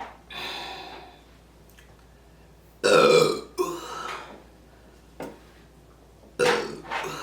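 A woman burping loudly after drinking beer: several burps, the loudest about three seconds in, followed by a shorter one, and another near the end.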